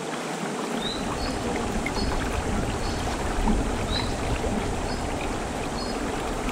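Bare feet wading through shallow river water, splashing and sloshing over the steady sound of the flowing stream, with a low rumble from about a second in. Faint short high chirps repeat about once a second.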